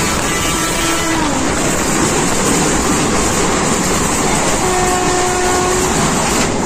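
Passenger train running, a loud steady rush of rail and carriage noise. Near the end a horn sounds one steady note for about a second.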